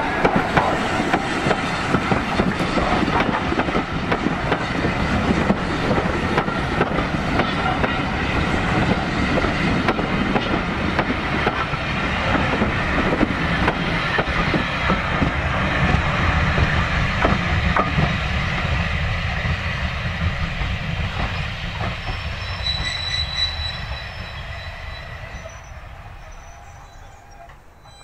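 Metropolitan Railway steam tank engine No. 1 and its train of coaches rolling close past, with a steady rumble and clatter of wheels on the rails. The sound fades away over the last few seconds as the train draws off.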